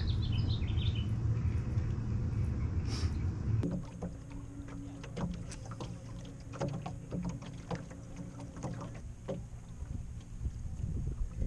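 A steady low rumble with a few bird chirps, then a quieter stretch of water lapping against a small aluminium jon boat's hull with scattered light knocks and clicks.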